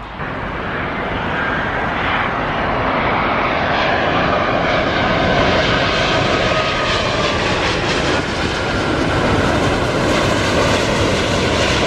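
Jet airliner coming in low overhead on final approach to land. The engine noise swells over the first few seconds and stays loud, with a whine that slowly drops in pitch as it passes.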